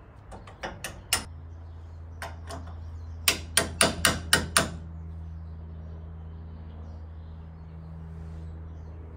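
Hammer tapping a smooth socket on an extension, driving a new rear axle seal evenly into the axle housing. There are a few light taps in the first second, two more, then a quick run of about seven harder taps around the middle, over a steady low hum.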